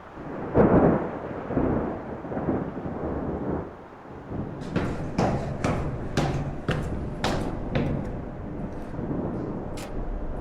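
A thunder-like rumble breaks out about half a second in and dies away over a few seconds. It is followed by a run of sharp, irregular cracks, about two a second, through the second half.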